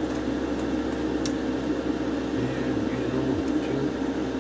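Extractor fan running steadily with a constant hum.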